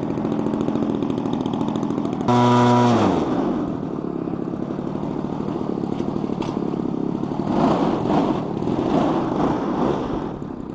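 Fuji Imvac 34 cc two-stroke gas engine of a quarter-scale RC Cub running on the ground just after starting. About two seconds in there is a brief, louder throttle blip whose pitch falls back. It then keeps running steadily, getting louder again later on.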